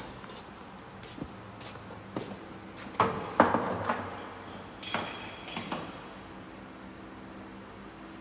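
A series of knocks and clunks from objects being handled, loudest about three seconds in, with a few more around five and six seconds, over a faint steady hum.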